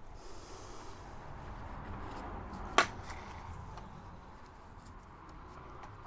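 Low hand-work noise on a model tank's hull, rubbing and handling of small parts, with one sharp click a little under three seconds in.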